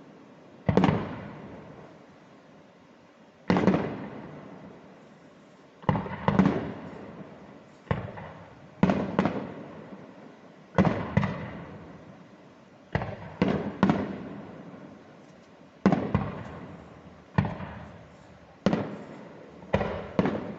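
Fireworks bursting overhead: sharp bangs come every second or two, sometimes two in quick succession, and each trails off in a long echoing rumble.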